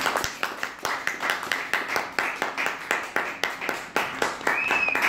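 A small audience applauding, the individual hand claps distinct and uneven.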